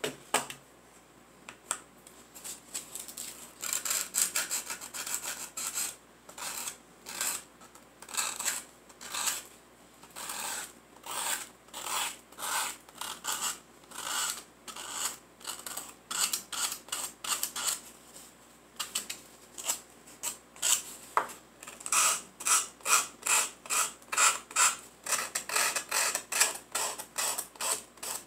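Sandpaper rubbed by hand over a small wooden dollhouse part in short back-and-forth strokes. The strokes are slow and uneven at first, then quicken to about two or three a second in the second half. A single click at the start.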